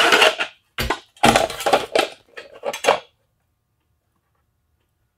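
A 3D-printed plastic taillight housing with the original Mustang lens and cover being handled and turned over, clicking and rattling. The clatter stops about three seconds in.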